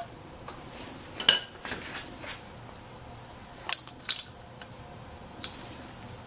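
Hand tools clinking on metal: a handful of scattered light clicks and taps as a socket and torque wrench are handled around the carburetor mounting nuts.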